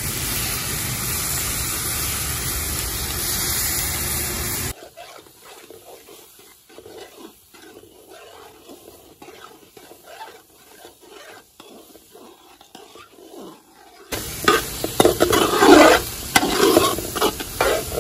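A metal spoon stirring and scraping chopped onions, bell peppers and smoked sausage sizzling in the bottom of a large aluminium pot, as the vegetables are browned down. A steady loud rushing noise fills the first few seconds, then the scraping strokes come quieter, then louder again near the end.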